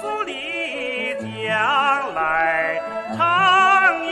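A man singing a Chinese folk song in a long-held, wavering vibrato over instrumental accompaniment, the opening line of the melody.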